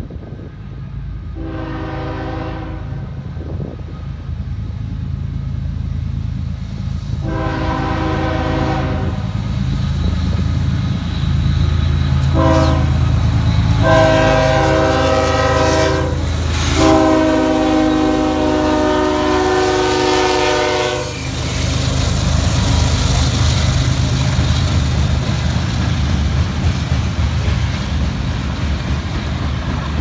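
Air horn of a Union Pacific GE ES44AC (GEVO) freight locomotive sounding five blasts as it approaches: two long, a short one, then two more long, the last held about four seconds. This is the grade-crossing signal. Under the horn the lead units' diesel engines rumble louder as they near and pass, giving way about two thirds of the way in to the steady rolling of the freight cars' wheels on the rails.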